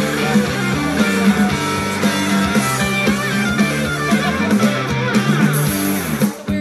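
Rock music with guitar and a steady beat, the accompaniment to a baton-twirling routine; it drops away near the end.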